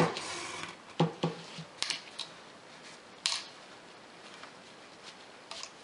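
Satin ribbon rubbing and being drawn through stretched embroidery fabric: a half-second rustle at the start, then short sharp swishes about two seconds in, about three and a half seconds in, and near the end.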